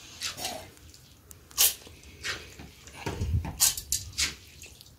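Steel spoon scraping and clinking against a bowl and a steel mixer-grinder jar as soaked rice is scooped across. It comes as a few short, separate scrapes and knocks, with a cluster of them in the second half.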